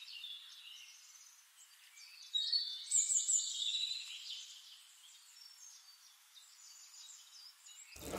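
Birds chirping and singing, thin and high with no low end; the loudest run of calls comes a couple of seconds in and dies away by about halfway.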